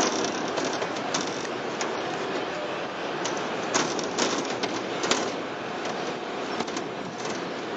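Railway inspection car running along the track: a steady rolling noise with sharp, irregular clicks and knocks from the wheels on the rails.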